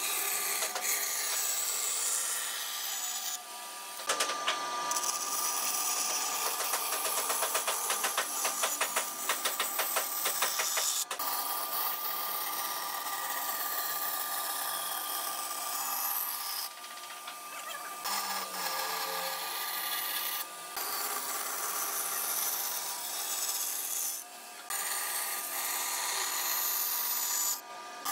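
Band saw running and cutting through a thick wooden board, the blade hissing through the wood over a steady motor hum. About four seconds in, a fast rattle runs for several seconds. The sound briefly drops several times.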